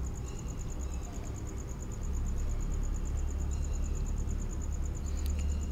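Cricket chirping in a fast, even high-pitched pulse over a low steady rumble.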